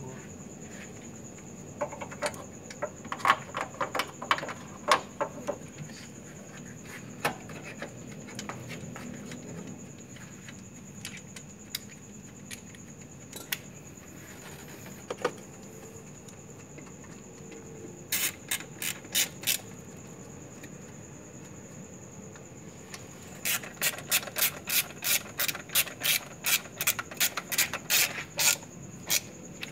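Hand-tool work: scattered scraping and clicking strokes, then, about two-thirds of the way in, a steady run of about three rasping strokes a second.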